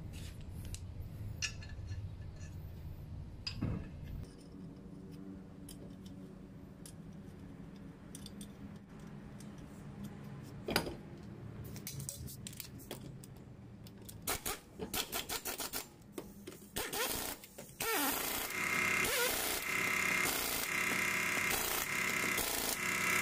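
Impact wrench run on a car's front wheel nuts: short rattling bursts about two thirds of the way in, then a steady run of about five seconds near the end as the nuts are driven tight. Before that, a few light knocks as the wheel is hung and the nuts are threaded on by hand.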